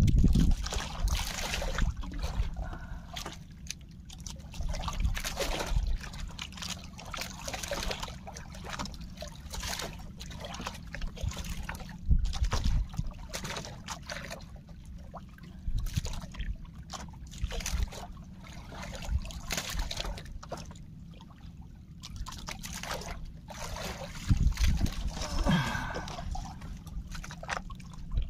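Sea water sloshing and splashing against a small fishing boat in irregular bursts, over a steady low rumble.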